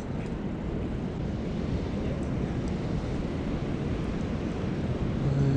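Steady low rush of ocean surf mixed with wind buffeting the microphone.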